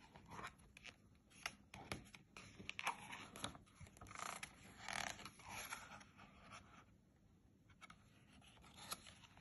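Soft rustling and scraping of thin card and paper as a lift-the-flap picture book's flap is lifted, folded back and handled. The noises come in quick short bursts, mostly in the first six seconds, with a couple more near the end.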